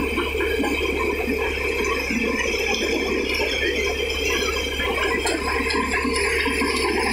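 Tractor-driven paddy thresher running under load as rice sheaves are fed through: a steady, dense mechanical rattle over the tractor's engine.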